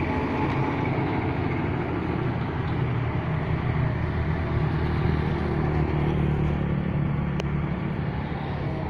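Road traffic going by: a truck and motorcycles pass with a steady engine rumble that swells for a few seconds mid-way, and a single sharp click comes near the end.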